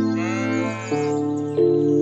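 A single bleat from a farm animal, under a second long and arching in pitch, over background music of sustained chords that change twice.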